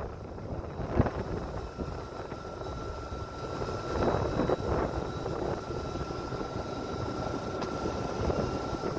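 LNER Class 801 Azuma electric train standing at the platform with a steady high whine from its equipment, under wind buffeting the microphone. There is a knock about a second in.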